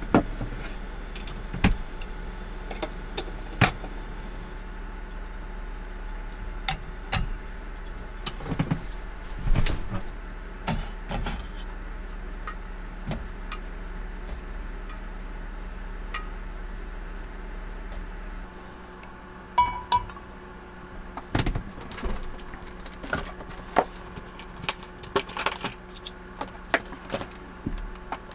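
Metal cooking gear clinking and clattering: tongs knocking against a small grill pan and steel plates, with scattered sharp clicks over a steady low hum.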